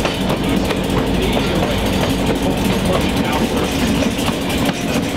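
Diesel locomotive engine running steadily, with scattered sharp clicks through it.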